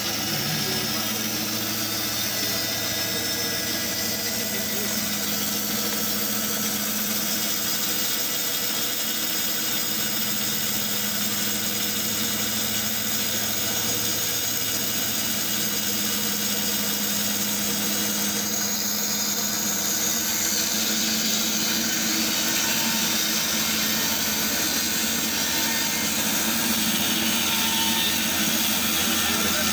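Log band saw running steadily, its motor and blade making a constant mechanical hum, with a slight change in its sound about eighteen seconds in.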